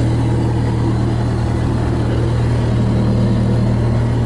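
Kubota diesel engine of a Bobcat S205 skid steer loader idling steadily at about 1180 rpm, a constant low hum.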